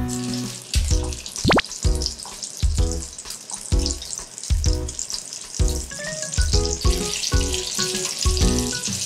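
Pumpkin croquettes deep-frying in hot oil: a steady crackling sizzle that grows stronger about seven seconds in, with the oil turned to high heat for the final seconds of frying. Background music with a steady beat plays over it.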